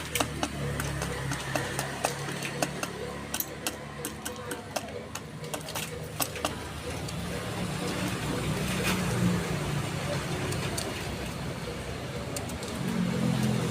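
Pigeons pecking at feed: many sharp taps, thickest in the first half, over a low wavering murmur that grows louder near the end.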